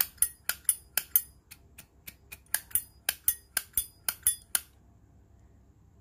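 Zippo lighter's hinged lid being flicked open and snapped shut over and over, about four or five sharp metallic clacks a second, stopping about 4.5 seconds in. The crisp clack shows off a good-sounding lid action on a 2002 brushed-chrome Zippo.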